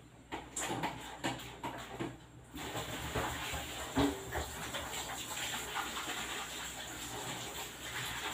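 A brief whimper from a Shih Tzu puppy about four seconds in, among scattered soft knocks and a steady hiss that starts partway through.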